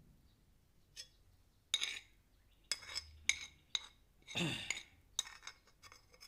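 A dog eating treats off a tiled floor: a string of short crunches and clicks as it chews and its teeth and the food knock on the tile, the longest and loudest a little past the middle.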